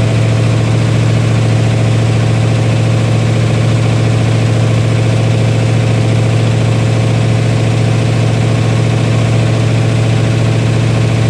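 Freshly rebuilt Dodge 318 V8 running steadily at an even speed through straight pipes, being broken in on its first run.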